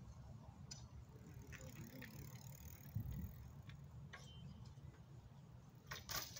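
Faint ticking of a BMX bike's freewheel hub ratcheting as the bike rolls, with a denser run of clicks near the end, over a low steady rumble.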